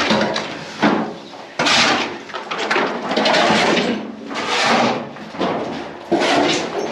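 Rough scraping and grating noises in a series of bursts, each about a second long, with sudden starts.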